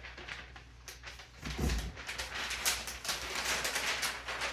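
Paper and packaging rustling and crinkling as they are handled, busiest in the second half, with a dull thump about one and a half seconds in.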